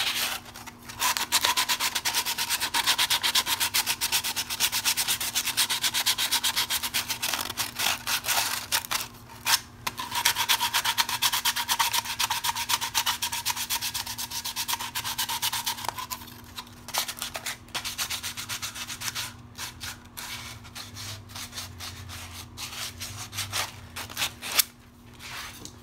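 Hand-sanding the cut edges of 3-inch ABS plastic pipe with 100-grit sandpaper: fast back-and-forth rasping strokes, with a short pause about nine seconds in. The strokes turn sparser and lighter after about sixteen seconds.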